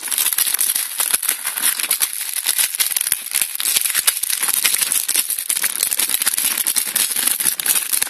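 Clear plastic bag crinkling and rustling as it is handled and opened, a dense run of crackles.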